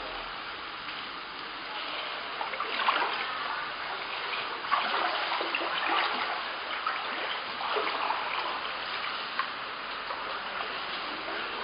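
Shallow floodwater across a house floor, splashing and sloshing at irregular steps as someone wades through it, over a steady hiss of moving water.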